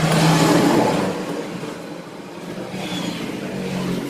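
A motor vehicle engine passing by, swelling in the first second and then fading.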